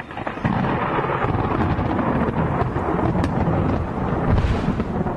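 Thunderstorm: thunder rumbling over steady rain, with a louder low rumble about four and a half seconds in.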